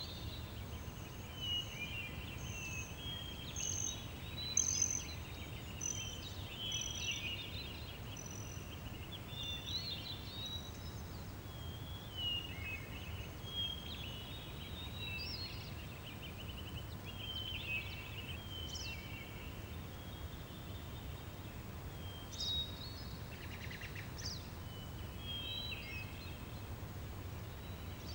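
Meadow ambience: several small birds chirp and warble on and off over a steady low rumble.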